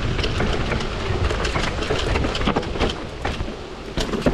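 Commencal Supreme DH downhill mountain bike clattering over rough, rocky trail: a dense, irregular run of clicks and rattles from the chain, frame and suspension over a steady low rumble of tyre noise.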